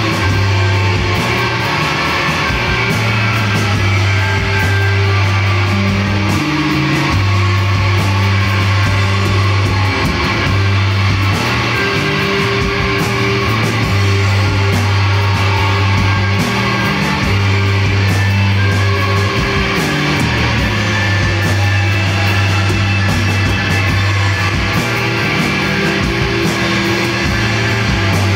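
A rock band playing live: electric guitars over held bass notes that change every couple of seconds, with drums and cymbals driving the beat.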